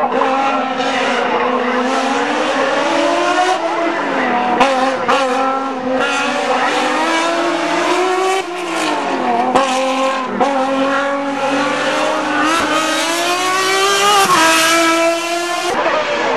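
Race car engines at full throttle on a hill climb, revving high. The pitch climbs and then drops sharply at each upshift, several times over.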